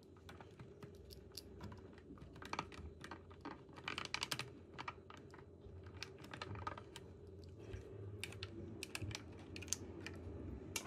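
Faint, irregular small clicks and taps as a replacement rear arm shaft is pressed and seated into its housing in a DJI Mini 4 Pro's plastic frame with a slim tool. The clicks bunch up a couple of seconds in and again near the end.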